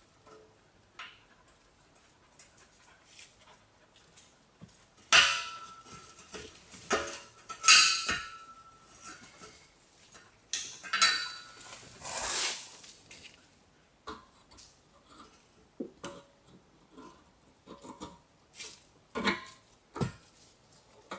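Pliers clinking and scraping on the steel band clamp and exhaust pipe at a Peugeot 406 silencer, with a few loud metal knocks that ring briefly, about five seconds in and again around the middle.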